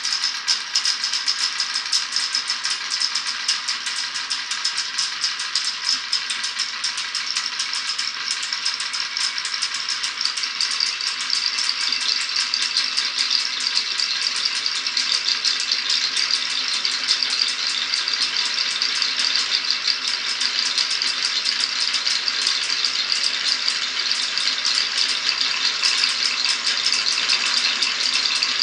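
Many marbles rolling and clattering down a marble-run course: a steady, dense rattle of tiny clicks that grows somewhat fuller after about ten seconds.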